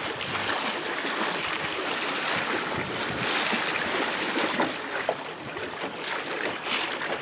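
Water sloshing and splashing against a small boat's hull as it moves over light chop, with wind on the microphone.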